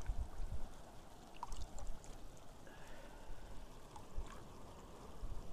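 Shallow stream water trickling over stones, with small splashes as a hand reaches into the water, and low rumbling bumps on the microphone.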